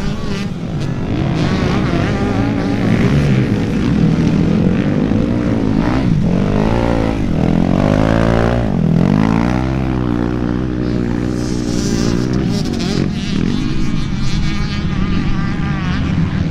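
Motocross bike engines revving hard and unevenly as the bikes struggle through deep mud. The revs rise and fall sharply about halfway through.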